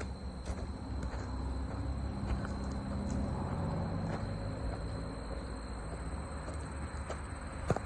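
Insects trilling steadily and high-pitched, over a low rumble.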